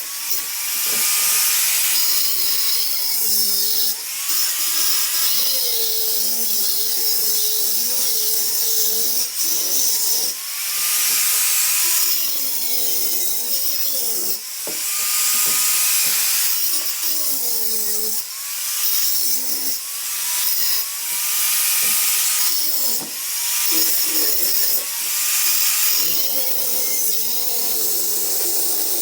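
Electric power tool motor running in long stretches, its pitch sagging and recovering again and again as it is loaded, with a strong high hiss that swells with each stretch.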